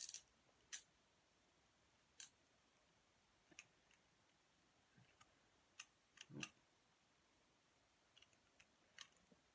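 Guardwell hinged handcuffs being closed onto the wrists: faint, irregular metal clicks of the ratchet, about a dozen in all.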